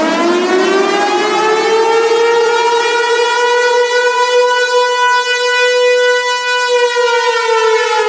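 Civil-defence warning siren, one long wail with many overtones. It rises from a low pitch over the first few seconds, holds steady at the top, and begins to fall near the end.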